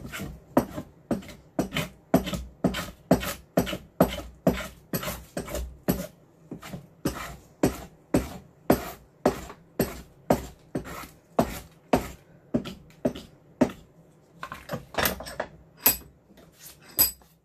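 Small hand plane shaving a willow cricket bat blade in quick, even strokes, about two a second, taking wood off to lighten the bat. Near the end the steady strokes break into a few sharper, irregular scrapes.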